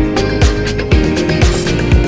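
Background music with a steady beat: funk-style track with kick drum and snare about twice a second under guitar chords.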